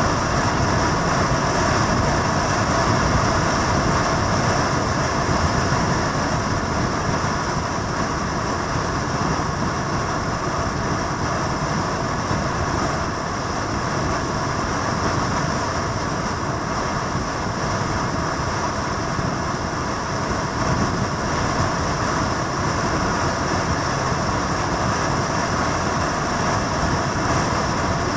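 Motorcycle engines and traffic noise, steady and unbroken, without distinct revs or sudden sounds.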